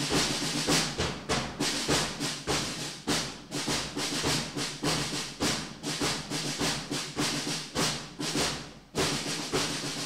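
Drums beating a steady march rhythm, about three strokes a second, each ringing briefly in the hall.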